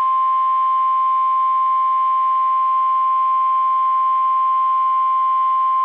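NOAA Weather Radio 1050 Hz warning alarm tone: one loud, steady high-pitched tone held without a break. It signals that a warning message is about to be broadcast.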